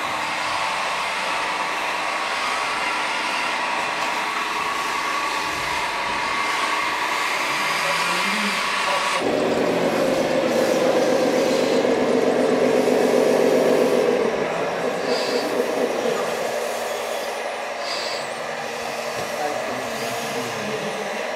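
Electric drive motors and hydraulic pump of radio-controlled construction models whirring steadily: first the wheel loader, then, after an abrupt change about nine seconds in, the Liebherr 944 excavator's pump humming louder for about five seconds before easing off.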